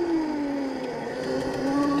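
Whine of a 36-volt, 1000-watt electric minibike motor under way at about 13 mph. Its pitch falls slightly through the first second, then holds steady.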